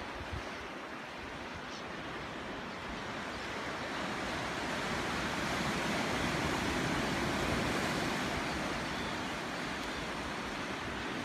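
Sea surf washing over a rocky shore, a steady rush that swells for a few seconds about halfway through, with some wind on the microphone.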